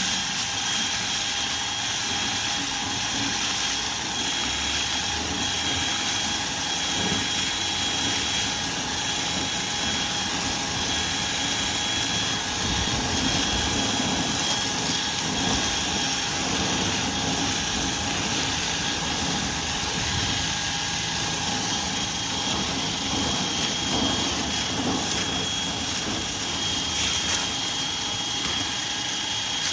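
Powered dryer-vent cleaning equipment running steadily through the duct, a continuous motor noise with a high, even whine.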